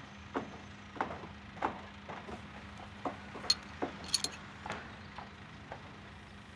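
A wrench working on metal parts: a dozen or so irregular clicks and knocks, with a quick cluster of sharper metallic clinks about three and a half to four seconds in, over a steady low hum.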